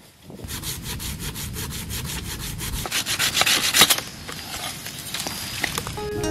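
Rapid, even scraping strokes, about seven a second, easing after about four seconds into slower scattered scrapes and clicks.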